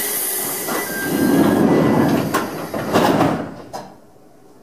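Pneumatic sliding doors of a Chichibu Railway 1000 series (ex-JNR 101 series) electric train closing while it stands at a station: a sudden hiss of air, then the doors running shut with a couple of thuds, before the sound drops away near the end.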